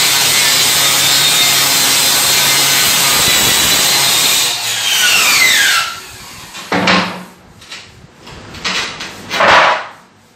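Handheld circular saw cutting a curve through plywood. About four and a half seconds in the motor is switched off and winds down with a falling whine, followed by a few short scraping sounds.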